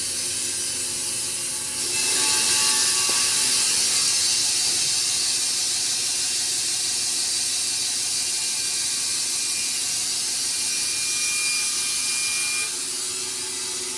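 Wood-Mizer industrial band sawmill running, with a steady high hiss of the band blade and debarker cutting through a log; it gets louder about two seconds in and eases off again near the end.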